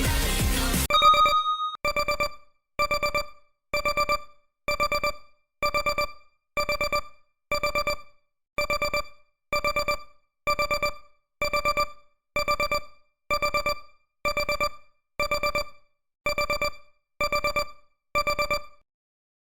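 Countdown timer alarm sounding as the timer ends: simple electronic beeps in quick bursts of four, repeating about once a second, starting about a second in as the music cuts off.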